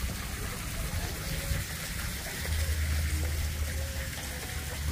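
Water running and splashing steadily into a fish pond, a constant rushing noise, with a low rumble coming in about halfway through.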